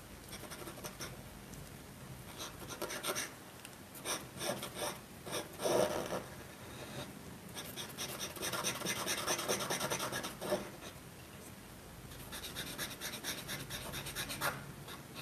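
Large paint marker scrubbed back and forth on paper to fill in solid black: an unpleasant scratchy rubbing of quick strokes, coming in bursts with short pauses.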